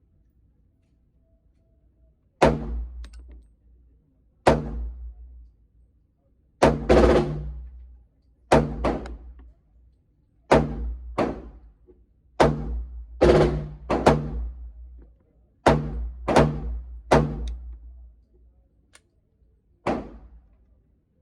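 A string of single gunshots, about seventeen, fired one at a time at an irregular semi-automatic pace, half a second to two seconds apart, each echoing briefly after the crack.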